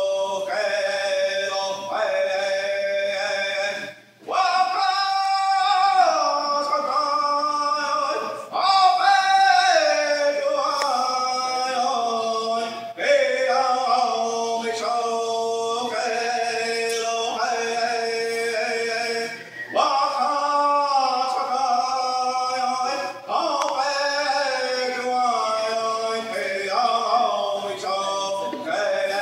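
A man singing solo with no drum or instruments: long, high held notes that slide up and down in pitch, with short breaks between phrases.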